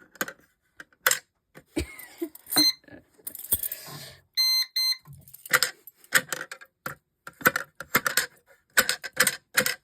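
Keys jangling and clicking as they are handled, with a short electronic alarm tone, broken in two, about four and a half seconds in.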